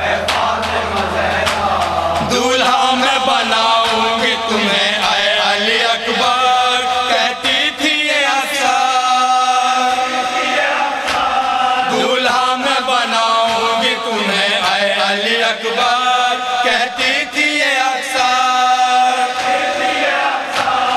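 Men chanting a noha, an Urdu lament, together in a slow melodic refrain, starting about two seconds in. Rhythmic chest-beating (matam) strikes run under the chant.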